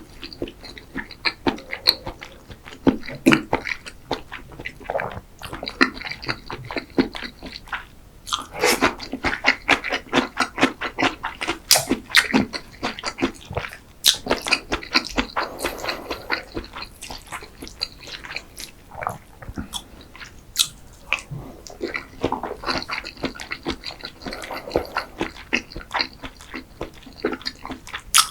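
Close-miked eating sounds: chewing with wet mouth smacks and a dense, irregular run of short sharp clicks.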